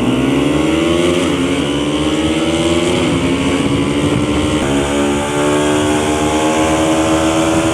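Bajaj Pulsar NS200 single-cylinder engine accelerating hard: the pitch climbs, drops back with each upshift, three times in the first few seconds, then holds a steady cruising note.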